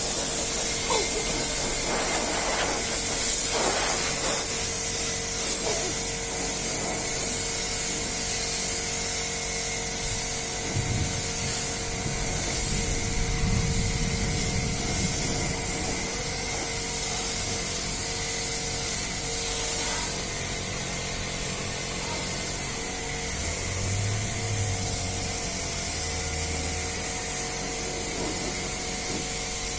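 Compressed-air paint spray gun hissing steadily as it sprays paint onto a truck's body panels, with a thin steady tone underneath.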